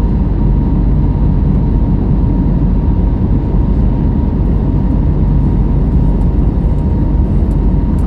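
Airliner cabin noise in flight: a steady, loud rumble of the jet engines and airflow, with a faint steady tone running through it.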